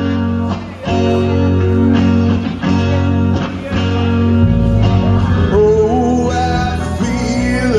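Live cover of a rock ballad played through a PA: guitar-led backing music with a strong bass line. A male vocalist's sung line comes in about five and a half seconds in.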